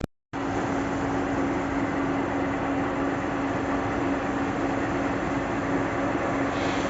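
Coffee dryer running at full tilt: a steady machine hum with one constant low tone over an even rushing noise.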